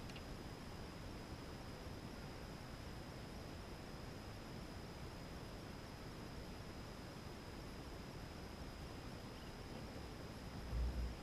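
Faint, steady open-air background hiss with a thin, steady high tone. A brief low rumble, like a gust or knock on the microphone, comes near the end.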